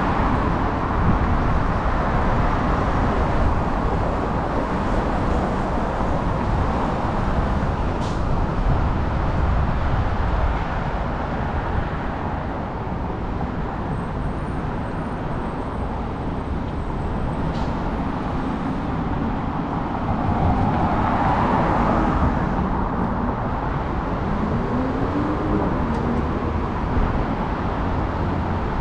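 Steady road traffic on a busy multi-lane city street, a continuous noise of cars passing. About two-thirds of the way through, one vehicle passes louder, its engine note rising and then falling.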